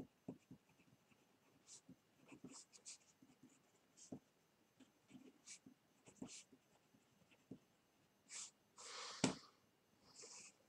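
Pen scratching on paper in short, irregular strokes as a line is handwritten. Near the end comes a louder rustle with a sharp knock.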